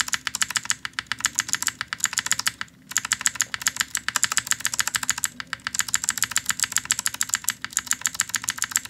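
A clicky blue mechanical keyboard switch, freshly oiled with machine oil, pressed rapidly over and over to work the oil in, giving a fast run of sharp clicks with two short breaks.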